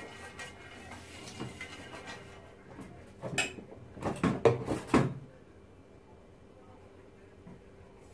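Silicone pastry brush faintly swishing oil across a nonstick frying pan, then, about three seconds in, a quick run of sharp clinks and knocks of kitchen utensils lasting about two seconds, the loudest sound here.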